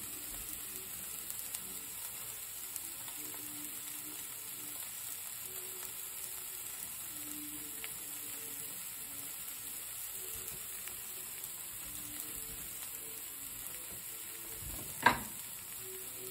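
Sticks of queso fresco sizzling steadily in a dry non-stick frying pan with no oil, the cheese still fridge-cold and the pan not fully preheated. A single sharp clink about a second before the end as a metal fork is picked up off the cutting board.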